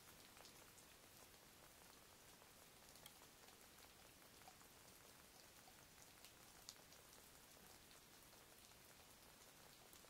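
Faint, scattered drops of water dripping from icicles, a light tick every second or two over a steady hiss.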